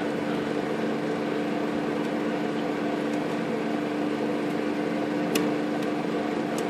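Steady mechanical hum with two constant tones, with two light clicks near the end from the manual typewriter's tab-set mechanism as a tab stop is set.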